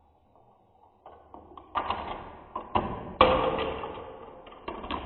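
Marbles running through a Gravitrax marble run: a few light clicks, then several loud clacks about two and three seconds in, each trailing off into a rolling rattle along the plastic track and metal rails, with another clack near the end.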